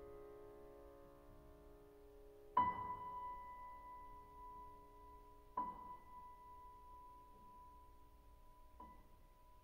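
Grand piano played very softly: a held chord rings away, then a single high note is struck three times, about three seconds apart, each left to ring over the sustained chord.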